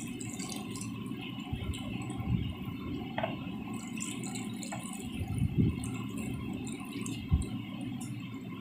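Water poured from a brass lota, trickling and splashing onto a small metal idol and rose petals in a plastic tub, with a few soft knocks.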